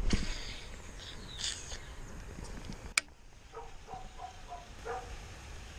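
A swimbait cast on a baitcasting rod and reel: a swish as the rod swings out, a hiss as line pays off the spool, then a sharp click about three seconds in as the reel is engaged for the retrieve. A few short animal calls follow about a second later.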